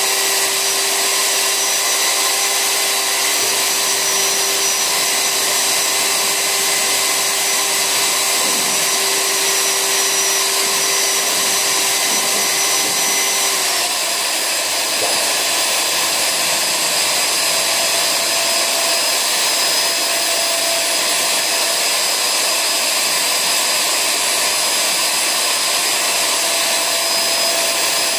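Corded hand-held electric paddle mixer running steadily in a bucket of paint, its motor giving a constant whine over a whirring hum while it stirs paint thinned with water. About halfway through, the motor's pitch shifts slightly.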